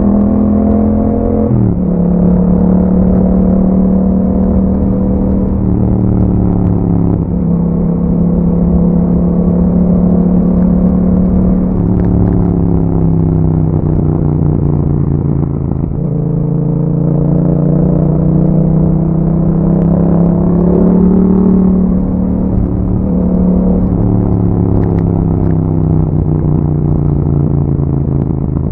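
2021 Yamaha MT-07's parallel-twin engine through an Akrapovic exhaust while riding, the engine note climbing and dropping back sharply several times as it pulls through the gears.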